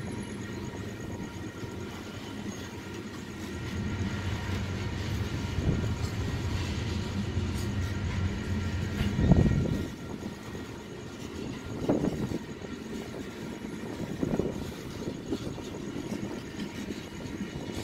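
Coal train cars rolling past on the rails with a continuous low rumble of wheels, broken by a few sharp, louder knocks, the loudest about nine seconds in.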